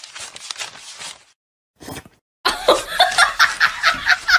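A person laughing in quick, repeated bursts. It starts loudly about two and a half seconds in, after a short quiet gap.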